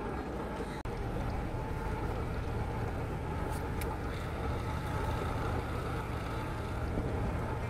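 Outboard motor of a small inflatable fishing boat running at idle, a steady low hum.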